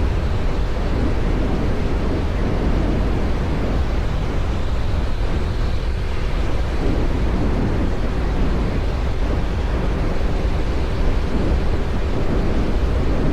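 Steady wind rumble on the microphone while travelling in a running vehicle, with a faint steady engine tone under it.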